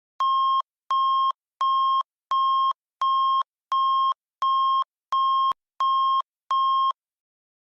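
Electronic alert beeps closing an emergency broadcast message: ten identical short, steady, high beeps, about one and a half a second, then they stop.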